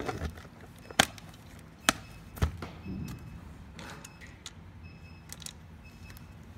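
Hard plastic knocks and clicks from an infusion pump's plastic housing being handled and pressed together on a bench. Four sharp knocks come in the first two and a half seconds, then lighter handling taps.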